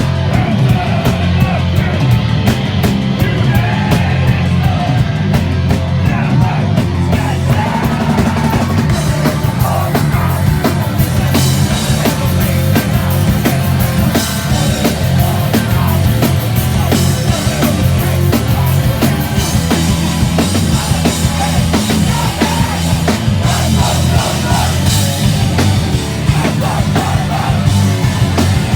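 Hardcore punk band playing live at full volume: distorted electric guitars, bass and a drum kit, with cymbals crashing harder from about seven seconds in.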